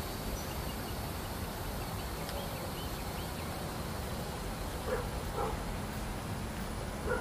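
Steady low outdoor rumble, with a few faint high chirps about two seconds in and three short animal calls: two close together about five seconds in and one more just after seven.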